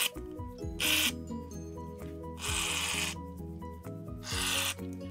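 Aerosol can of shaving foam hissing out in three short spurts: about a second in, for nearly a second around the middle, and briefly near the end. Background music plays under it.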